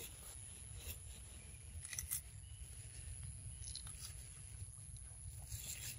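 Macaque chewing a piece of green food: a few soft crunches about two seconds in and again near the end, over a low wind rumble and a thin steady high whine.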